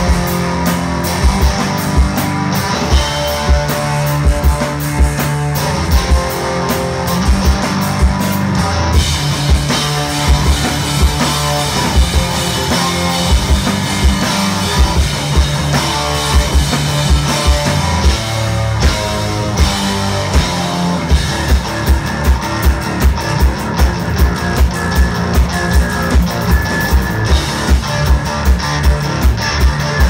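Rock band playing live: electric bass, electric guitar and drum kit, with the kick drum falling into a steady beat of about two a second in the second half.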